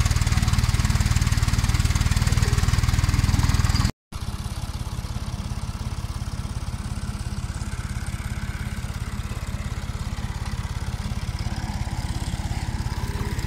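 Massey Ferguson 135 tractor engine running steadily, turning a belt-driven borehole pump, with water splashing out of the outlet. The engine is loud for about the first four seconds, cuts out for an instant, then carries on quieter.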